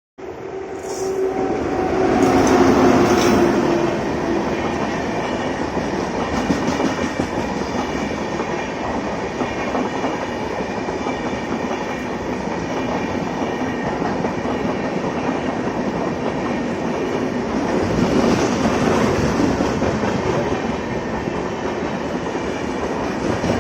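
Railway train running on the track, with a steady rumble and the clickety-clack of wheels over rail joints. Held tones sound over the first few seconds, falling slightly in pitch, and the noise swells again briefly later on.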